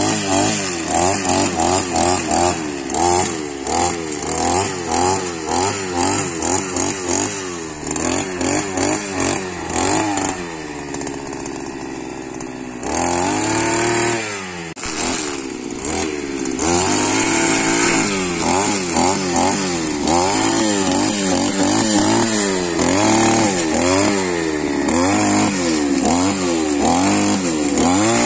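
Petrol brush cutter engine revving up and down over and over as it cuts grass and weeds. It falls to a lower idle for a couple of seconds around the middle, then revs hard again.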